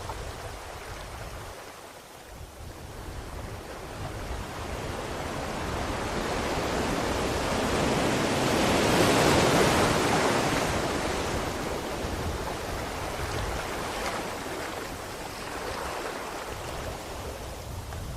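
Rushing water noise that swells slowly to a peak about halfway through, then eases off.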